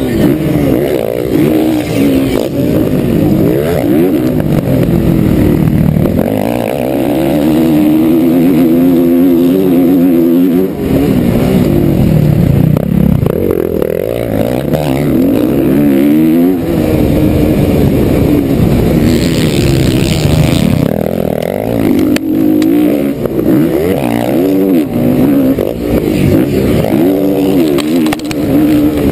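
Motocross bike engine heard up close from a camera on the bike, revving hard and falling back again and again with throttle and gear changes. A brief hiss about two-thirds of the way through.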